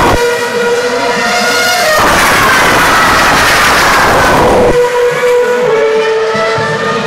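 Formula One car's 2.4-litre V8 at high revs passing by about two seconds in, its pitch falling as it goes, loud for about three seconds before cutting off sharply. Steady high engine notes from other cars on the circuit carry on underneath.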